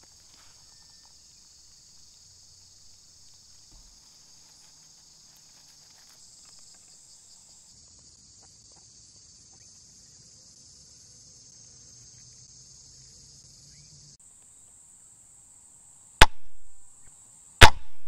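Insects chirring steadily, high-pitched. Near the end come two sharp knocks about a second and a half apart, much the loudest sounds.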